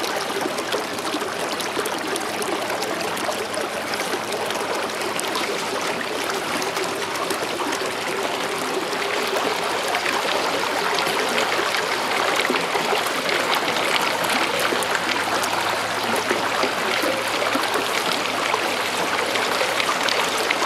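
Steady rushing and trickling of water stirred up by the moving electric canoe, growing a little louder about halfway through.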